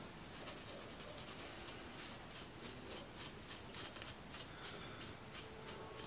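Scotch-Brite scouring pad rubbing the metal rod of a furnace flame sensor: faint scratching strokes, about three a second, stronger from about two seconds in. The rod is being scrubbed clean of dirt.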